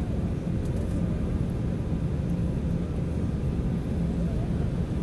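Steady low rumble of a jet airliner's engines and airflow, heard inside the passenger cabin during the descent to land.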